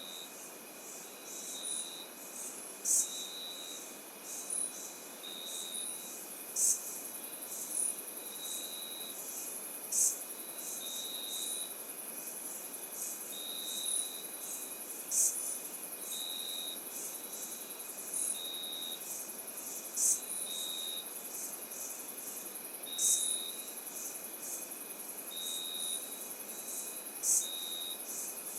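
Cloud-forest insect chorus, with crickets among the callers: steady high trills, short chirps repeating every second or two, and sharper, higher calls every few seconds, over a soft steady hiss.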